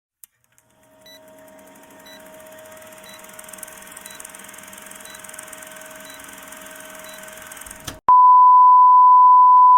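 A faint steady electronic hum with a short high tick about once a second, then, about eight seconds in, a loud steady single-pitch beep tone that holds.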